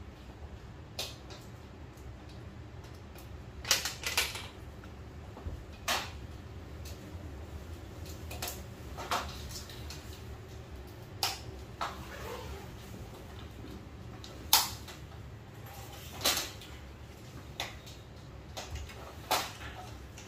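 Snap fasteners on a portable projector screen's aluminium frame clicking shut as the screen fabric's grommets are pressed on one at a time: about a dozen sharp clicks at irregular intervals, some in close pairs, over a low steady hum.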